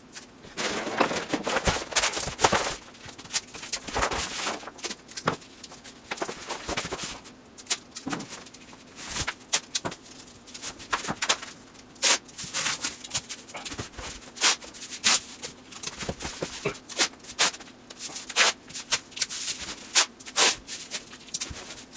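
Paper rustling and crinkling with light knocks and clicks as felt paper is spread and pressed down on the floor, in irregular bursts over a faint steady hum.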